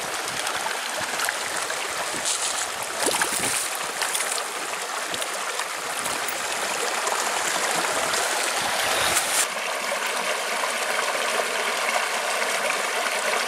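Shallow rocky stream running and trickling, with a few brief splashes as hands move a released trout in the water. Faint background music comes in about two-thirds of the way through.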